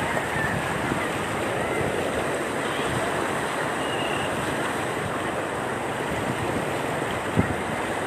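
Floodwater rushing across a submerged road: a steady, even rushing noise.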